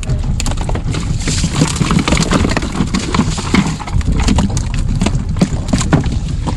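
Small fishing boat underway, its hull knocking and slapping irregularly on the waves over a steady low rumble, with wind buffeting the microphone.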